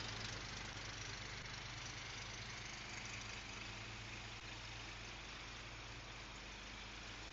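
A faint, steady mechanical hum with a hiss over it, like a small engine idling.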